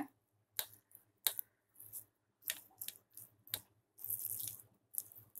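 Soft wet squelching and irregular smacks of a bare hand rubbing thick spice marinade into a raw water hen carcass on a plate.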